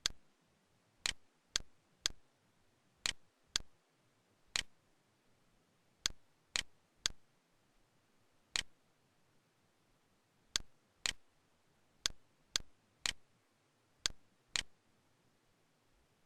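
Camtasia's cursor mouse-click sound effect clicking about eighteen times. The clicks are short and sharp and come in uneven groups of two or three, about half a second apart within a group.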